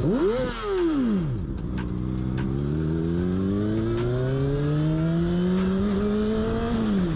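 Sport motorcycle engine, heard from the rider's seat: a quick throttle blip at the start, then a steady pull with the pitch climbing slowly for about five seconds, dropping near the end as the throttle closes.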